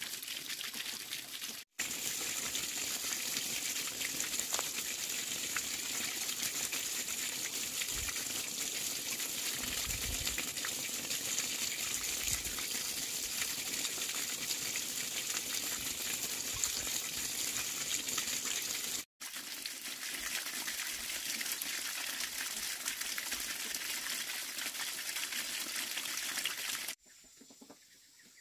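Water running or gushing steadily. It breaks off abruptly twice and stops about a second before the end.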